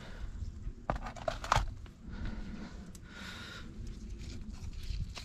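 Small plastic plant pots knocking and clicking against each other as one is lifted out of a tray of pots and moved, with a few sharp knocks about a second in, then a softer rustle.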